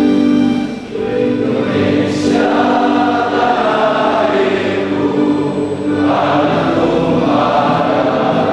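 A choir singing to instrumental accompaniment, with a brief lull about a second in before the voices come in.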